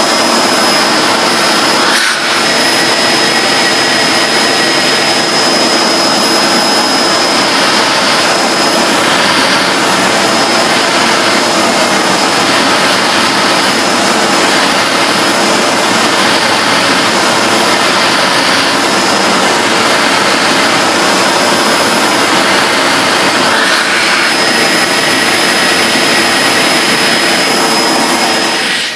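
Hoover Globe bagless vacuum cleaner running: a loud, steady rush of air with a high-pitched whine.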